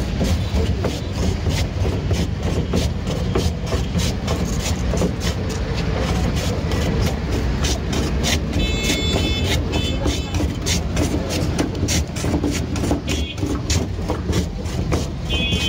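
A block of ice pushed back and forth over the blade of a wooden hand ice shaver, making quick, rhythmic rasping scrapes, several strokes a second, over a low street rumble. A high ringing tone sounds twice, just past halfway and at the end.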